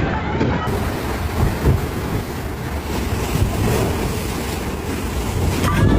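Wind buffeting the microphone over rushing sea water and a low rumble from a small boat under way at sea.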